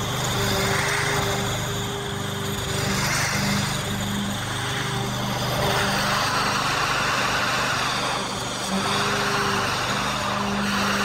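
Masport walk-behind petrol lawn mower running steadily as it is pushed along a strip of grass, with a brief break in its steady engine note late on.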